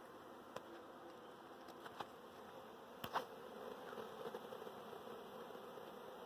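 Faint, steady buzzing of a large honey bee swarm crawling into a hive box on a lawn, with a few brief soft clicks in the first three seconds.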